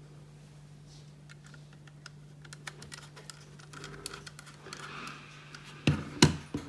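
Light metal ticks and clicks of a magnetic screwdriver driving small screws into a laptop's SSD mount, with two sharp knocks close together near the end.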